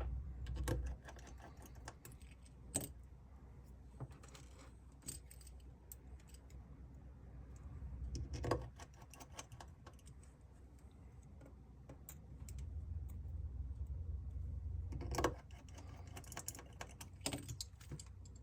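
Scattered small clicks and taps of tools and tiny screws on a phone being put back together, with stretches of low hum underneath.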